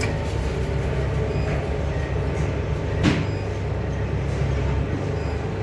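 Steady low machinery hum, with one short knock about three seconds in.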